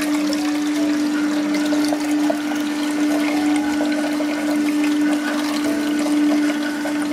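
Juice streaming from the opened spout of a Hurom H320N slow juicer and splashing into its plastic juice jug, over the steady hum of the juicer's motor.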